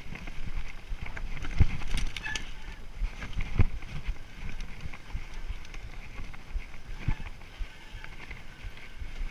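Mountain bike descending a rough dirt trail: tyres rolling over dirt and roots and the bike rattling, with heavy knocks from bumps about one and a half, three and a half and seven seconds in.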